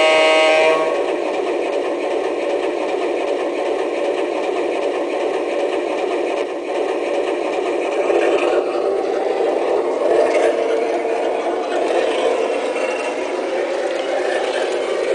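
An O scale model diesel locomotive's electronic horn blows for under a second, then a steady running noise of model trains moving on three-rail track, growing busier from about eight seconds in.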